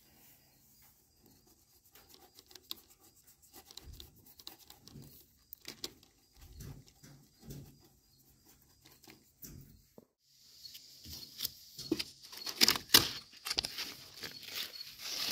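A small paintbrush dabbing and rubbing against a stencil sheet, soft irregular taps and scratches. About ten seconds in the sound changes abruptly to a stencil sheet held with painter's tape being lifted and handled, with louder crinkling and crackles.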